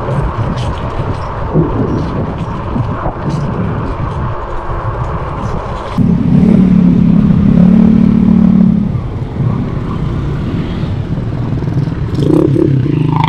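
Road traffic heard while riding an electric bike: wind and road noise with small rattles, then a sudden jump about six seconds in to a motor vehicle engine running loudly close by for about three seconds, and another engine near the end.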